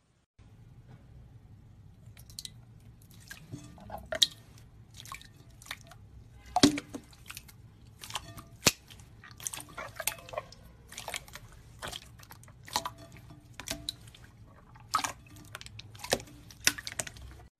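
Slime being squeezed and poked by hand, giving irregular wet clicks, pops and squelches, a few of them much louder than the rest.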